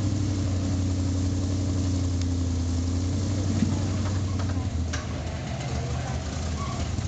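A lifted small pickup truck's engine running steadily under load as the truck crawls up a steep dirt bank. The engine eases off slightly about five seconds in.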